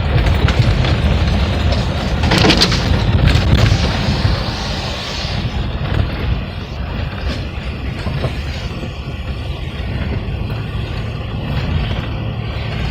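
Vehicle driving slowly over a slushy, snow-covered driveway: a steady low rumble of tyres and body, with a louder stretch of crunching and knocking about two to five seconds in.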